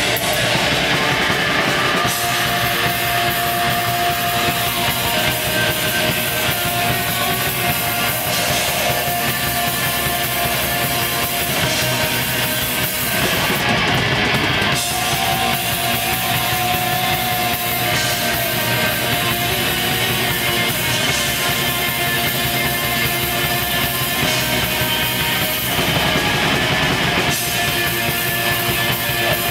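Black metal band playing live: a dense, continuous wall of distorted guitars and drums with long held notes.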